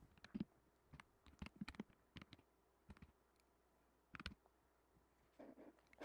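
Faint, irregular clicking of computer keys being typed, loudest about four seconds in.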